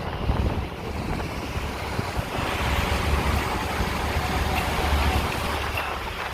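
Wind buffeting the microphone aboard a boat under way, with water rushing past and a low rumble; the rushing hiss grows louder about two seconds in.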